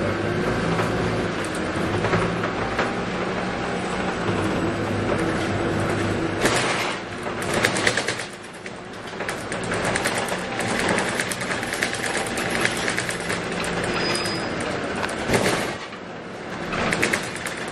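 Scania K280UB bus's 9.3-litre five-cylinder diesel running while the bus is driven, heard from inside the cabin, its note rising and falling. Interior rattles and clatter come in bursts, loudest about six to eight seconds in and again near the end.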